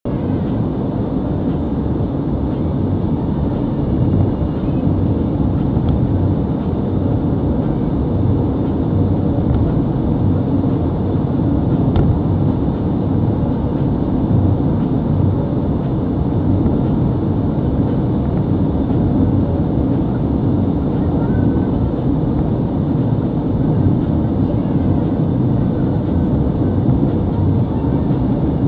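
Steady road noise inside a car cruising at motorway speed: a low, even roar of tyres on the road surface, engine and wind that does not change in level.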